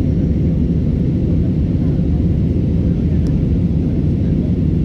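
Steady low rumble of engines and airflow inside the cabin of an Airbus A320neo airliner, unchanging in level.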